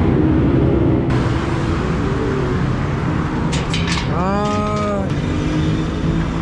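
Road vehicle running through city traffic, a steady engine hum under road noise. Just after four seconds in, a single pitched tone rises and then holds for about a second.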